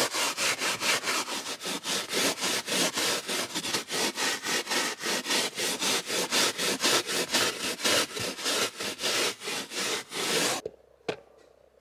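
Hard-bristle hand brush scrubbing car floor carpet worked with carpet cleaner, in quick back-and-forth strokes about five a second. The scrubbing stops near the end.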